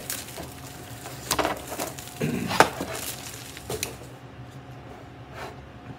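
Thin metal garden stakes clinking and knocking as they are handled: about five separate sharp taps, spaced a second or so apart.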